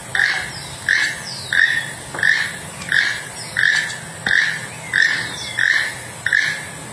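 Keel-billed toucan calling: a short croak repeated evenly, about three every two seconds.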